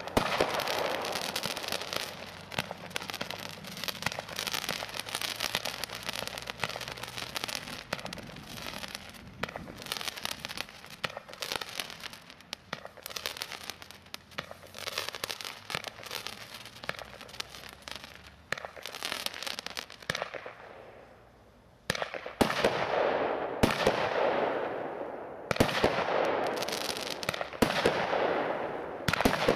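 WECO Power Tec PRO 180.1 fireworks compound firing: a rapid, continuous string of shot launches and bursts. The shots thin out to a short lull about twenty seconds in, then loud bursts resume.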